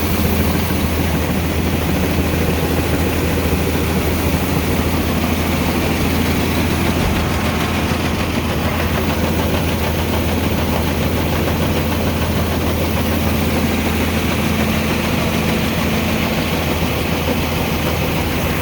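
A large farm diesel engine running steadily at constant speed, with a deep, even hum and no change in pitch.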